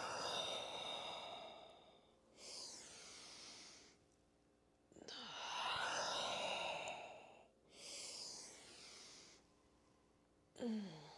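Slow, deep human breathing: two long, louder, sighing breaths out, each followed by a shorter, quieter breath in.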